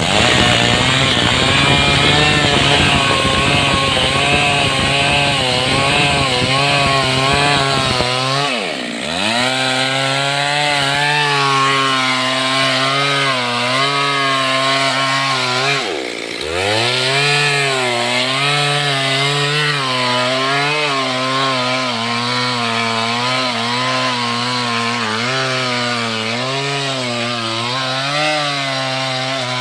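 Stihl MS 382 two-stroke chainsaw running at high revs while cutting into a teak trunk, its pitch wavering as the chain loads up in the wood. Twice, about nine and sixteen seconds in, the revs drop sharply and then climb back.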